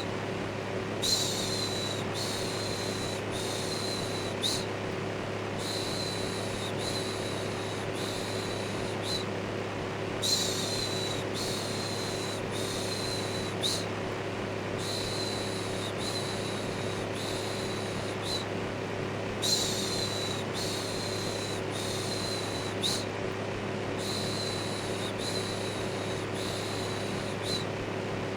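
Electric fan running with a steady hum, overlaid with a repeated 'shhh' shushing, each shush about a second long, coming in runs of about four with short pauses between.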